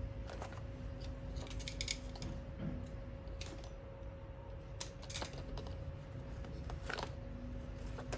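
Scattered light clicks and scrapes of small metal tools and parts being handled on a workbench, with a cluster of quick ticks about two seconds in. A faint steady hum sits underneath.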